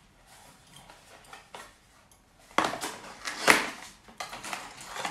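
A small cardboard gift box being opened by hand: cardboard flaps pulled apart, rubbing and scraping, with a louder burst of handling about three seconds in.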